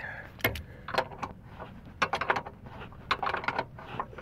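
Metal-on-metal clicks and rattles of a wrench working the seized lower control arm bushing sleeve. A few single clicks come first, then short dense clusters about a second apart.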